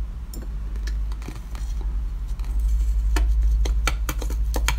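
Teeth biting into a large frozen block of red-dyed ice, giving a quick run of sharp cracking clicks in the last couple of seconds, over a steady low hum.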